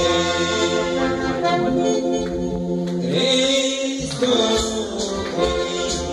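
Live praise song: a Yamaha electronic keyboard playing chords and melody with electric guitars, and voices singing along.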